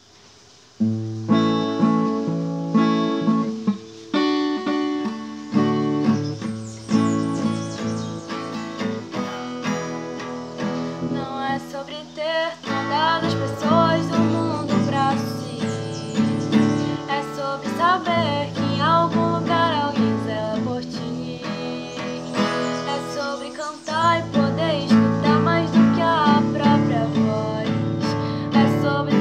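Acoustic guitar playing chords, starting about a second in. About halfway through, a young woman's voice joins it, singing in Portuguese.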